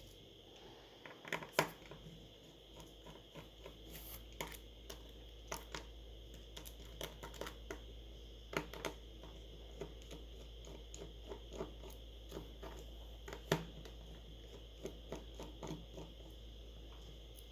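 Small, irregular clicks and taps of hand tools and plastic parts as a smartphone is taken apart on the bench, over a steady low electrical hum.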